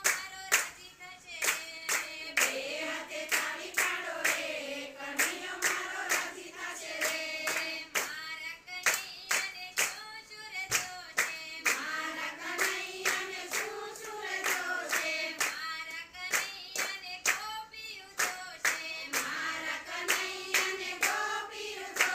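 A group of women singing a Gujarati devotional kirtan together, keeping time with steady rhythmic hand claps.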